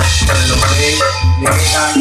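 Banyumasan ebeg gamelan music played loudly, with drum strokes and ringing metallophone notes over a deep low tone that stops about one and a half seconds in.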